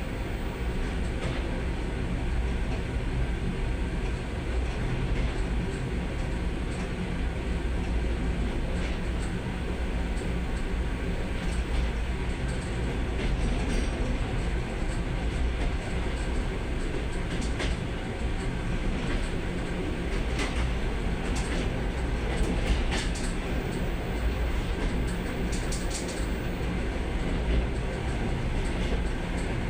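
Suburban electric train running on the line, heard from inside the carriage: a steady low rumble with the clatter of the wheels over the rails, and sharper clicks coming more often in the second half.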